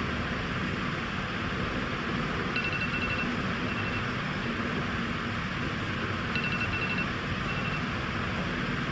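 Steady background hiss of ambient noise. A short pattern of high, thin chirps or beeps comes twice, about two and a half seconds in and again about six and a half seconds in.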